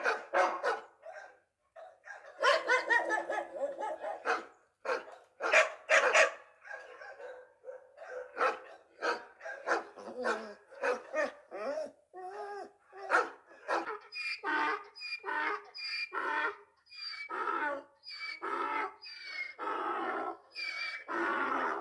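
A dog barking and yipping over and over in short, pitched calls.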